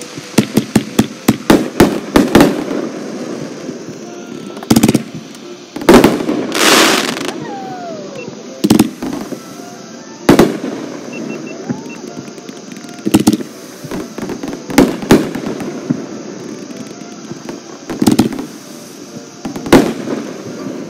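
Fireworks going off: a rapid string of about a dozen sharp bangs in the first couple of seconds, then single booms every one to three seconds, with a longer noisy crackling burst about six seconds in.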